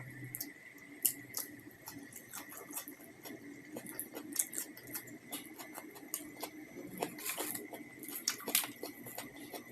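Close-miked eating sounds of a person chewing a meal: a quick, irregular run of small wet clicks and smacks, thickest near the end.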